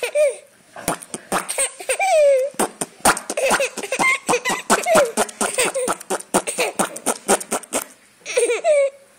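A young child laughing hard in long runs of short, high-pitched bursts, with a brief pause near the end before another burst.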